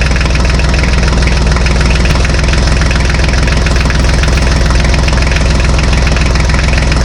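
Tractor engine idling steadily, with a fast, even beat from its firing.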